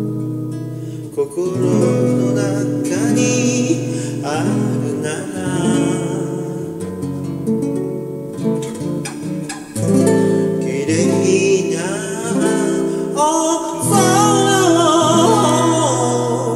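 Song with acoustic guitar accompaniment and a singing voice; the wavering vocal line is strongest in the last few seconds.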